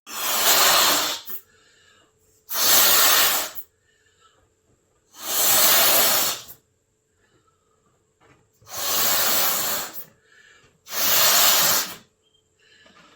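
Air hissing through a balloon's neck in five loud rushes, each about a second long and a couple of seconds apart, with faint rubbery squeaks in between.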